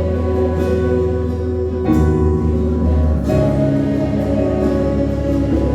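Live worship band playing a slow gospel song instrumental passage between sung lines: a strong bass holding notes under sustained chords, with the chords changing twice.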